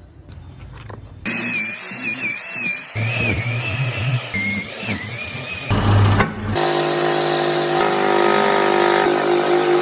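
Small electric power tools working wood. A high motor whine wavers in pitch as the load changes, then after a cut a steadier motor drone runs at constant speed.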